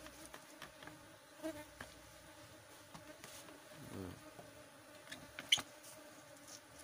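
Asian honey bees (Apis cerana) buzzing steadily around freshly cut honeycomb, with one louder buzz passing about four seconds in that falls in pitch. A sharp click comes about five and a half seconds in.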